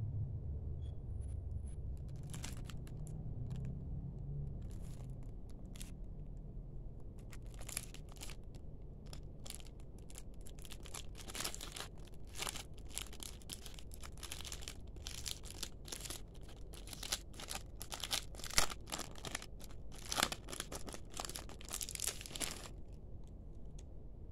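Clear plastic packaging being handled and pulled open by hand: a run of sharp crinkling and tearing crackles that thickens after several seconds and stops shortly before the end.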